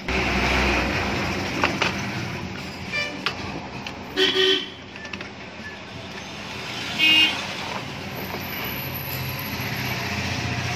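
Road traffic: vehicles running past, with two short horn toots, one about four seconds in and a shorter, higher one about seven seconds in. A few light clicks come just before two seconds in.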